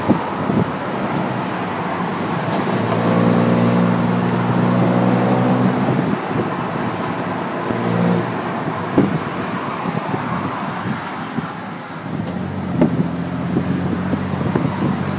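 Tuk-tuk under way, its small engine droning, with wind and road noise rushing through the open cabin. The engine note fades around ten to twelve seconds in and picks up again near the end.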